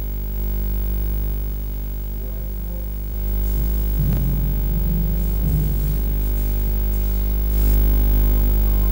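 Steady electrical mains hum on a live audio feed: a low buzz with a stack of even overtones. It gets a little louder near the end, and faint indistinct sounds come through it in the middle.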